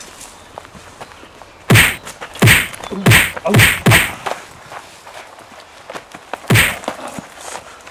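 Blows in a staged fist fight: sharp whacks, five in quick succession about two seconds in, then one more near the end.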